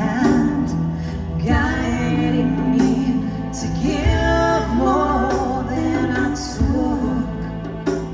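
A live band playing, with a woman singing a melody over sustained chords and a deep bass note that lands every couple of seconds.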